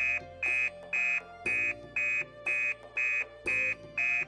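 Electronic beeping, evenly repeated about twice a second, each beep short and high, over quieter background music.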